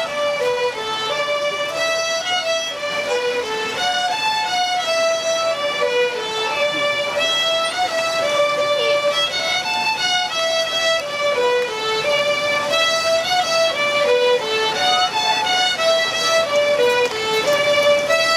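Music: a violin playing a melody in which a short falling phrase comes round again every few seconds.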